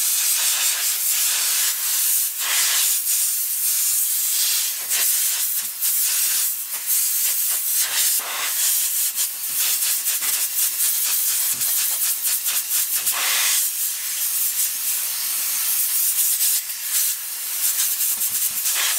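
Compressed-air blow gun hissing as it blows dust out of a petrol RC buggy's foam air filter from the inside out. The rush of air rises and falls as the nozzle moves over the foam, and it cuts off suddenly at the end.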